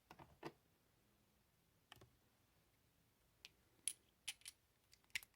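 A handful of scattered light clicks and taps, several of them coming close together near the end: metal socket extensions being handled and knocked against each other.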